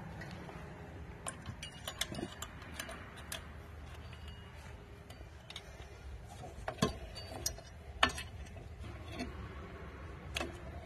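Irregular light metallic clicks and taps of drum brake hardware being handled and fitted by hand: the adjuster, a spring and a shoe going onto the backing plate. A steady low hum runs underneath.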